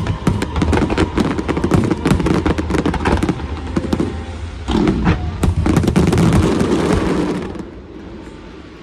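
Fireworks going off: a dense run of crackling bangs and pops over a low rumble, thinning out and fading near the end.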